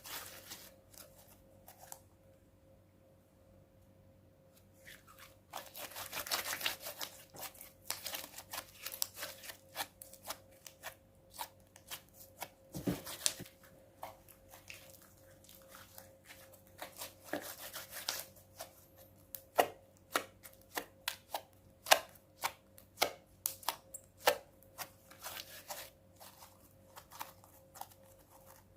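Clear glue and borax slime being worked by hand: a dense run of sticky crackling from about five seconds in, then a long series of separate sharp clicks and pops as it is pressed and poked.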